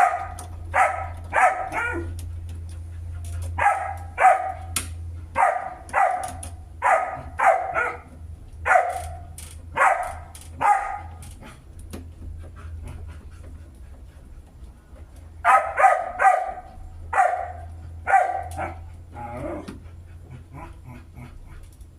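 A dog barking over and over in runs of short barks, with a pause of a few seconds in the middle; a low steady hum runs underneath.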